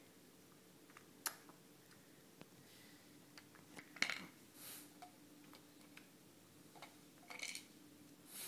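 A baby chewing a rice cake, heard as a few sharp clicks and short crunchy rustles over a quiet room with a faint steady hum.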